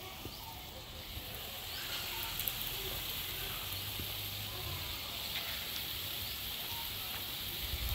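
Lentil fritters deep-frying in hot oil in a wok: a steady sizzling hiss with a few faint crackles, growing louder after about a second.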